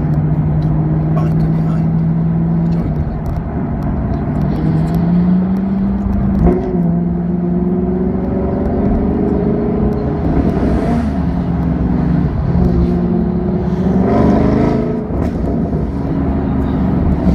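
Car engine running under way, heard from inside a car's cabin: a steady drone whose pitch climbs three times in short revs as the car accelerates.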